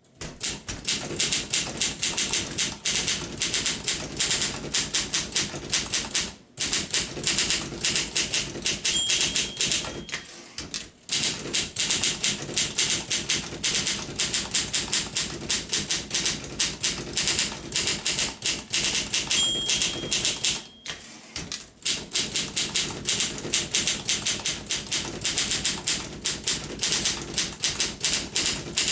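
1958 Olympia SM3 portable manual typewriter being typed on fast, a dense clatter of key and typebar strikes broken by a few short pauses, with a brief high ringing tone twice.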